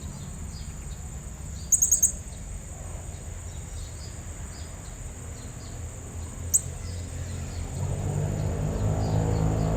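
Quick run of four shrill high call notes about two seconds in and a single one later, typical of a blue-crowned hanging parrot (serindit), over a steady high insect drone. A low engine drone swells near the end.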